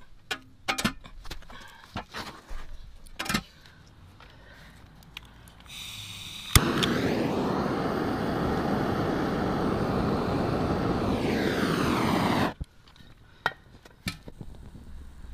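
Handheld gas canister blowtorch lit against the burner of a Sheen X-300 flame gun: a hiss of gas, a sharp ignition click about six and a half seconds in, then the torch flame running loud and steady for about six seconds, heating the burner, before it cuts off suddenly. Before it, scattered clicks and knocks of handling.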